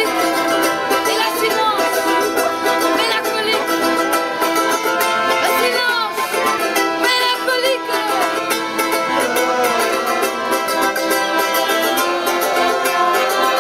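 Street band playing a lively tune on two button accordions and a small strummed string instrument, with a woman singing over the sustained accordion chords.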